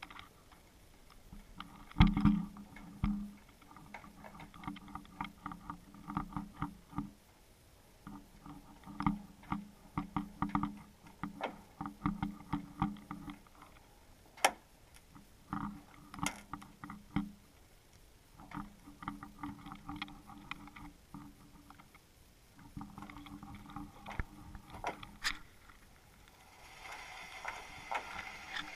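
Underwater camera hanging beneath the ice, picking up runs of small clicks and knocks with quiet gaps between them. The loudest knock is about two seconds in, and a steady hiss comes up near the end.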